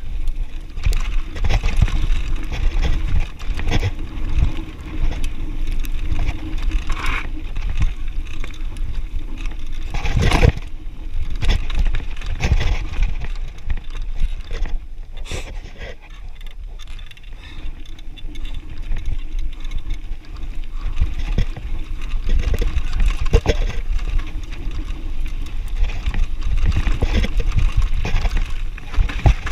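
Mountain bike rolling downhill over a rocky gravel trail: tyres crunching over loose stones and the bike rattling and knocking over the bumps, with a steady low rumble. It eases off for a few seconds around the middle, then picks up again.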